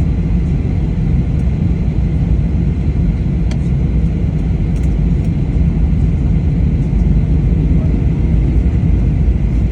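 Steady low rumble of a vehicle in motion, holding an even level throughout.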